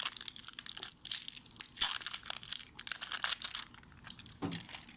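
Plastic packaging of a toy slime crinkling and crackling as it is handled and pulled at while someone tries to open it. The crackling is dense and irregular and dies away near the end.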